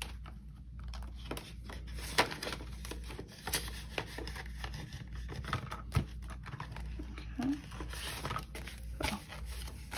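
Paper banknotes and cash envelopes being handled and counted by hand: irregular rustling and crinkling of paper with scattered small clicks.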